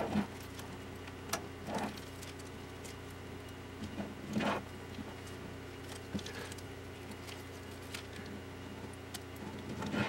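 Hands handling a self-adhesive LED light strip as it is wound around a cylinder: a few brief rustles and crinkles of the strip and its peeled backing tape, with scattered small clicks, over a steady low hum.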